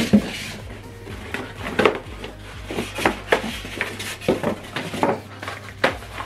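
Cardboard carton and polystyrene foam packing being handled: irregular knocks, scrapes and rubbing as a small cardboard box is pulled out from among the foam inserts, over background music.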